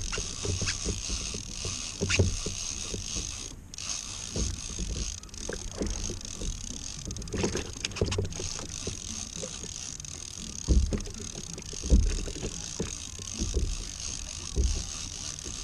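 Irregular knocks, creaks and mechanical clicks from a fishing kayak and its rigging and reel, over a steady high hiss of wind and water.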